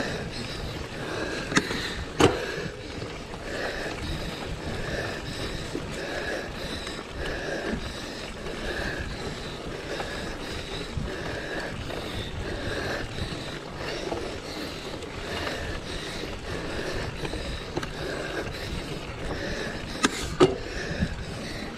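Mountain bike riding: steady rumbling wind and tyre noise, with a regular pulse a little more than once a second. Sharp knocks from the bike come twice about two seconds in and twice near the end.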